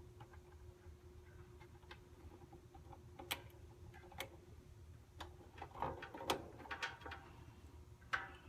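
Scattered small clicks and taps of wires and push-on spade terminals being fitted by hand onto a hard start kit's relay, with a busier patch of handling about two-thirds of the way through, over a faint steady hum.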